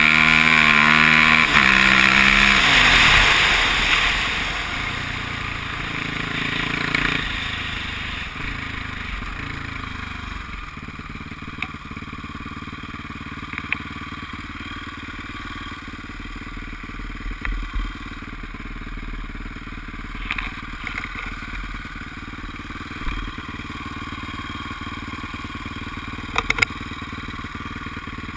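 Can-Am sport quad's engine coming off the throttle, its pitch falling over the first few seconds as the quad slows, then idling steadily after it stops, with a few faint clicks.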